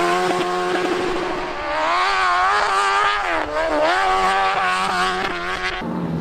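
Dirt bike engine revving hard, its pitch climbing and falling with the throttle, and an abrupt change in the sound near the end.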